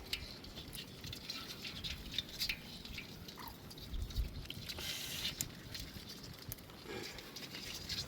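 Fishing net being handled by hand as small catfish are worked free of the mesh: faint, scattered light clicks and rustles.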